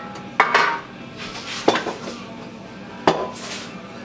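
Metal bakeware knocking and clanking on a kitchen counter: a metal baking pan and a stainless steel mixing bowl with a spoon in it. Three sharp knocks, each with a brief ring, about a second and a half apart, with light scraping between them.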